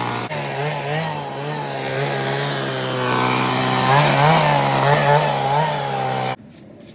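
Small petrol engine of a power tool, such as a grass cutter or blower, running fast, its pitch wavering with a few brief throttle blips, then cutting off abruptly about six seconds in.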